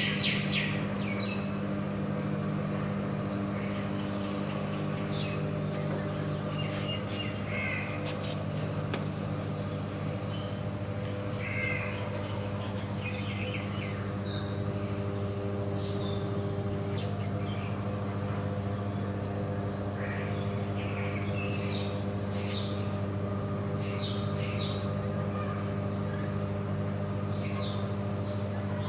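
Steady machinery hum made of several low held tones, with birds calling now and then over it.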